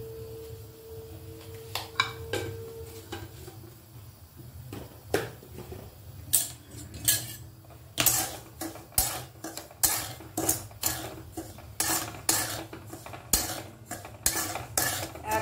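A metal spoon stirring and scraping dry salt around a metal wok as the salt is dry-roasted, in regular strokes about two a second from about six seconds in. A few single clinks come before the stirring settles in.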